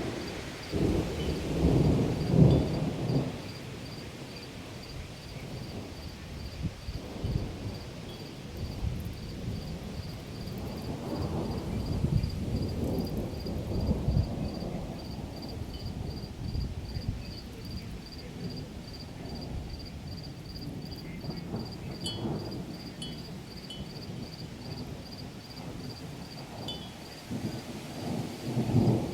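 Thunder rumbling in long rolls over steady rain, loudest in the first few seconds, again about halfway through and near the end. A faint high-pitched pulsing repeats evenly throughout.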